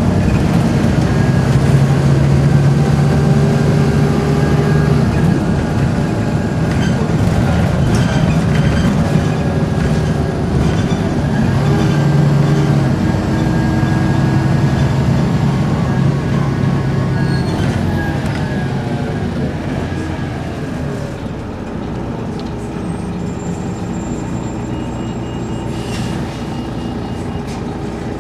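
Volvo B7RLE bus with a ZF automatic gearbox running as it speeds up and slows down. Its diesel engine changes pitch, and a steady low groaning tone comes and goes in stretches of a few seconds, which the owner thinks may be an engine belt. The sound grows quieter in the second half.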